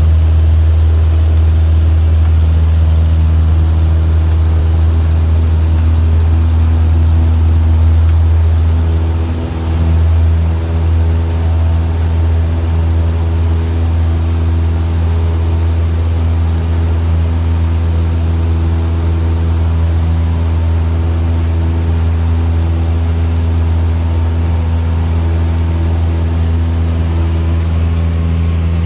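Cessna 172M's four-cylinder Lycoming O-320 engine and propeller at full takeoff power, a loud, steady low drone heard inside the cabin through the takeoff roll and climb-out. The level dips briefly about nine seconds in.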